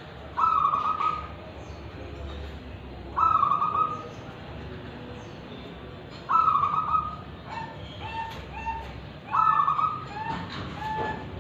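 Zebra dove (perkutut) cooing its song: four loud calls come about every three seconds, and runs of short, lower notes fall between the later ones. The uploader rates the voice as 'kristal' (clear) and 'ulem' (deep).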